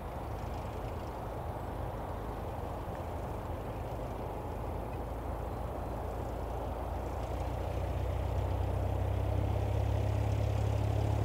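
Pratt & Whitney PT6-20B turboprop engine of a Lancair Legacy running at takeoff power during its takeoff roll: a steady low hum that grows louder over the last few seconds as the aircraft draws nearer.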